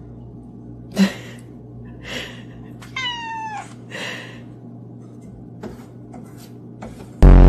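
Domestic cat meowing: a short meow that falls in pitch about three seconds in, among other short cat sounds and a sharp click about a second in. Near the end a very loud, brief burst with a steady pitch cuts in.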